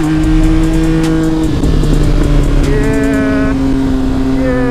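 Yamaha MT-09's three-cylinder engine running at a steady cruise, heard from the rider's seat with wind rushing over the microphone. The engine note eases slightly lower about a second and a half in, then holds steady.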